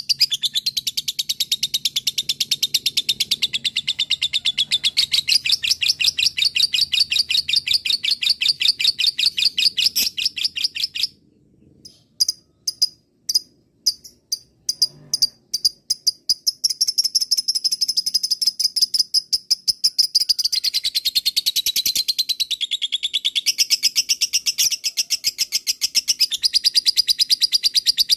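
Lovebird doing its long 'ngekek' chatter: a very fast, even run of sharp high-pitched notes. It breaks off about eleven seconds in for a few separate chirps, then starts up again about five seconds later.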